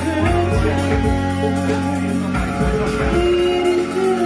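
Live band playing synth-driven music: keyboard synthesizers play a melody over a sustained low bass note, with a steady drum beat.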